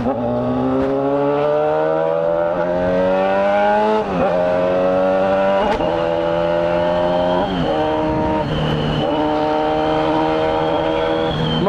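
Honda Hornet motorcycle's inline-four engine pulling hard under acceleration. Its pitch climbs for about four seconds, drops at a gear change, climbs again, and then runs at a steady cruise with a few brief dips as the throttle eases.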